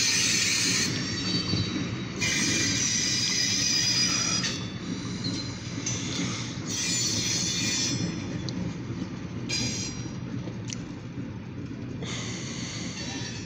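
Freight train of covered grain hopper cars rolling past, steel wheels squealing in high-pitched bouts that come and go over a steady low rumble of the cars on the rails. Heard from inside a car.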